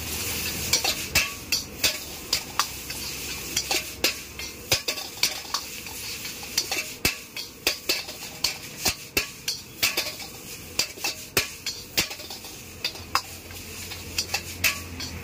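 Metal ladle clanking and scraping against a large wok as noodles are tossed and stir-fried, with irregular sharp knocks about twice a second over a steady frying sizzle.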